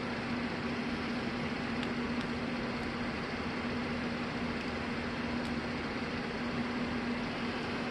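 Steady machine hum over an even hiss, like a fan or air conditioner running, unchanging throughout.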